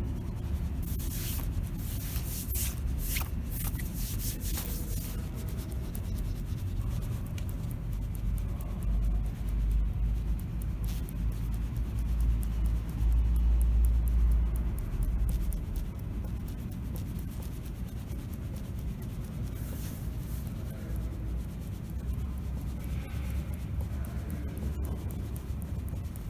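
Subway platform background: a steady low rumble that swells for several seconds around the middle, with short hissing noises in the first few seconds.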